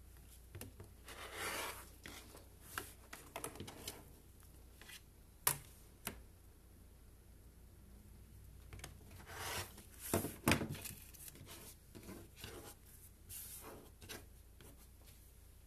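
Rotary cutter drawn along an acrylic ruler through several layers of stacked fabric on a cutting mat: a handful of short rasping cuts, mixed with sharp clicks and sliding of the ruler being shifted and set down, and hands brushing fabric scraps across the mat.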